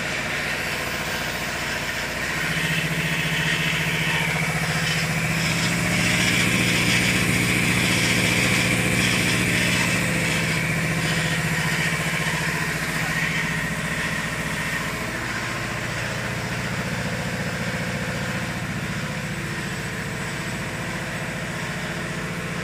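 Glue-spraying composite machine for non-woven cotton running steadily, with a low hum that strengthens a couple of seconds in. Over it is a hiss that swells, is loudest in the first half, and fades after about the middle.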